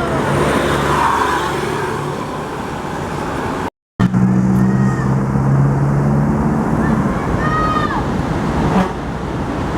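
Large tour bus engines running as buses go by on the road, a steady low drone that grows stronger for about three seconds after the sound cuts out briefly about four seconds in. Short shouts are heard near the end.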